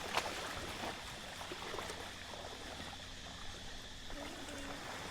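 Sea water sloshing and trickling against a boat, a steady watery noise with a few small splashes and clicks, over a steady low rumble.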